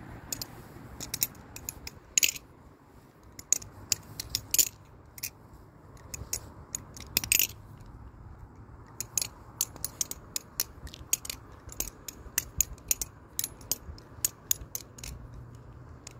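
Butterfly knife (balisong) being flipped through rollovers: its handles and pivot clack together in irregular runs of sharp metallic clicks, with a few louder clacks about 2, 4.5 and 7 seconds in.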